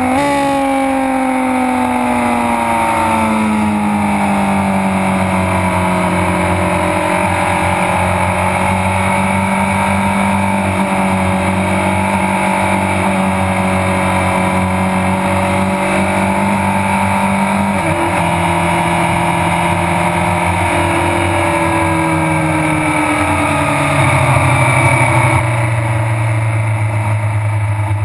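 Suzuki GSX-R 600 inline-four engine heard from on board at speed, over rushing wind. The revs fall over the first few seconds, then hold a steady note for a long stretch. About two-thirds of the way in they drop in several steps and settle to a lower, slightly louder steady note near the end.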